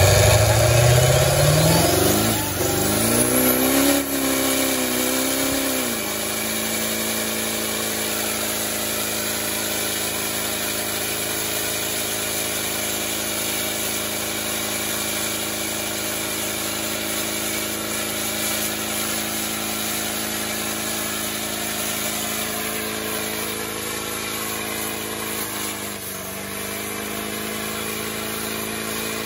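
Diesel pickup truck engine revving hard during a burnout, its pitch swinging up and down for the first few seconds, then held at a steady speed, with a brief drop in pitch near the end.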